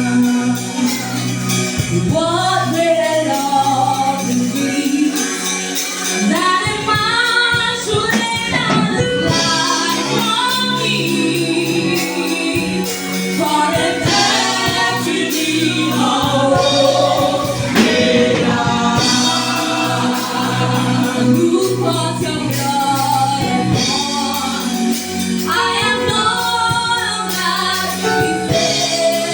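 Gospel choir singing a worship song over instrumental accompaniment with a steady beat.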